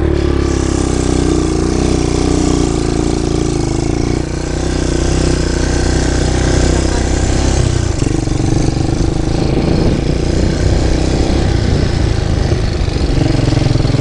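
Off-road vehicle's engine running as it drives over a rough dirt trail. The engine note wavers in the first few seconds, dips briefly about four seconds in, and turns rougher and more rattly from about eight seconds on.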